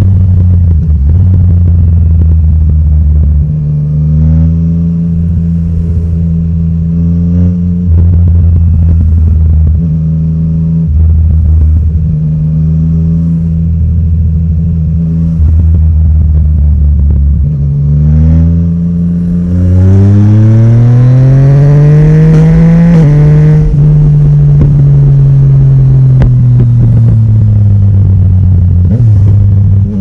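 Yamaha Tracer 900 GT's inline-three engine through an Akrapovic exhaust, heard while riding. For the first half the engine note steps up and down with the throttle. About two-thirds in it climbs in one long rev, drops sharply at an upshift, then falls slowly as the throttle is eased off.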